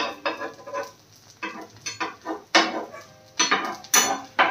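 A cooking utensil clinking and scraping against a pan in a string of irregular, sharp strokes.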